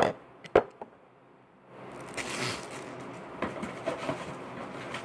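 Handling noise of items being moved close to the microphone: two sharp knocks in the first second, the second one the loudest, then after a short pause a run of rustling and scraping with small clicks.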